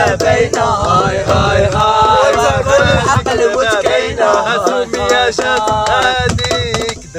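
A group of young men singing a chant together, with hand claps.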